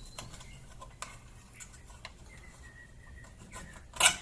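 Scattered light clicks and taps of hardware being handled while an outlet box is fitted, with one sharp knock near the end.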